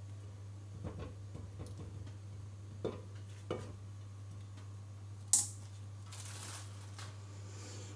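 Wooden spoon stirring a thick pink mixture in a metal pot, knocking lightly against the pot a few times, then one sharp click about five seconds in. A short rustle of plastic sheeting follows.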